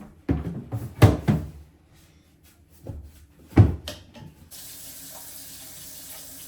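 A few knocks and handling sounds, then a tap turned on about four and a half seconds in, water running steadily into a sink.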